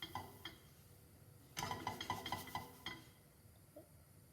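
Kitchenware clinking: a couple of light taps, then a quick run of ringing clinks about halfway through, as a pancake is handled between the pan and a plate.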